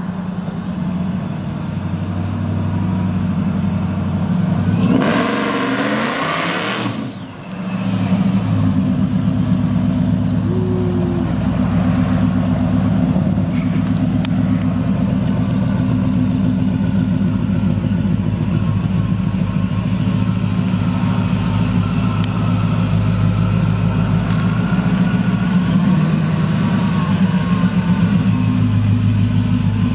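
Supercharged custom Chevrolet C10 short bed's engine running as the truck drives off. It revs up in a sharp rising sweep about five seconds in, cuts off abruptly a couple of seconds later, then settles back to a steady drone.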